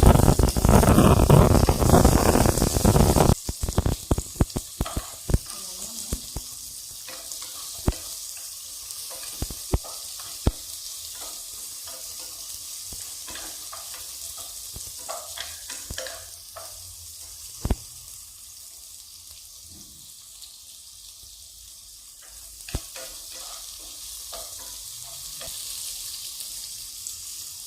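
Garlic frying in hot oil in a wok, stirred with a spatula. A loud crackling sizzle for the first three seconds drops to a softer steady sizzle, with scattered sharp clicks of the spatula against the pan.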